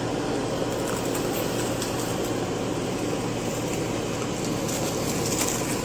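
An air fryer's fan running with a steady whir and hum.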